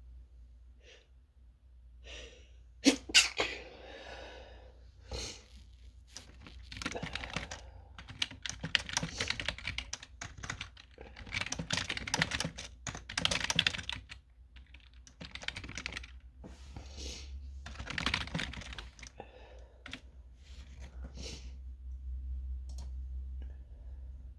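Typing on a computer keyboard in bursts of rapid key clicks, with one sharp, loud sound about three seconds in.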